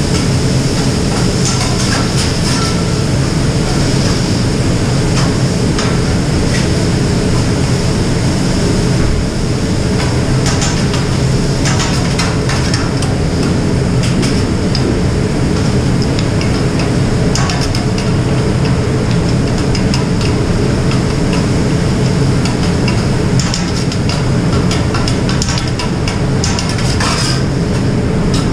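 Steady loud rush of a commercial kitchen exhaust hood and food sizzling on a large round flat-top Mongolian grill. Scattered clacks and scrapes of the griller's long metal tools against the griddle run through it.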